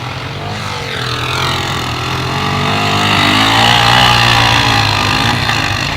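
ATV engine revving as the machine approaches and goes past. It grows louder to a peak about four seconds in, then eases off, with the engine pitch rising and falling.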